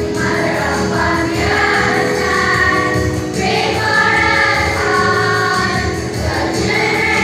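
A children's choir singing a song with musical accompaniment.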